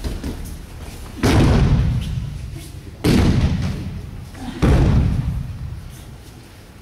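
Three heavy thuds of judoka falling onto tatami mats, about a second and a half to two seconds apart, each ringing on in the echo of a large sports hall.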